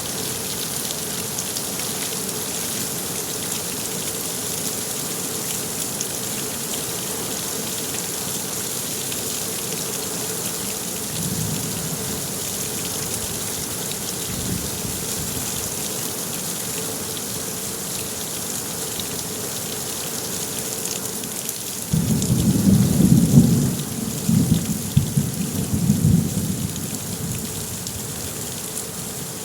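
Steady rain pattering down with a continuous hiss. A faint low rumble of thunder comes about a third of the way in. Past two-thirds, a louder rolling rumble of thunder lasts about five seconds.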